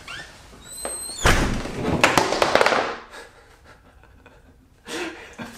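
A door shuts about a second in and an electric skateboard falls off its wall rack with a loud crash that lasts a couple of seconds, knocked down by the jolt of the door closing.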